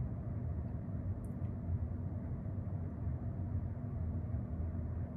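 Steady low rumble and hum of background room noise, with a faint click about a second in.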